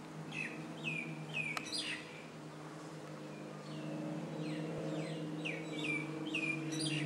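Small birds chirping in quick runs of short falling chirps, over a steady low drone from a formation of propeller aerobatic planes that grows louder from about halfway in.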